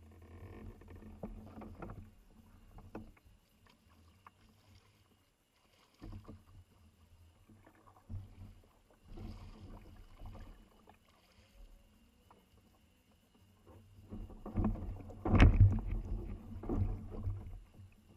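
Kayak paddling: uneven splashes and knocks of paddle and water against the hull, with a louder thump near the end.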